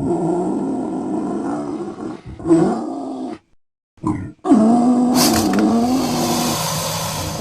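Designed creature roars for the prehistoric therapsid Estemmenosuchus: a long low roar, a short grunt-like call, a brief silence, then another long roar that wavers in pitch and gains a hissing edge partway through.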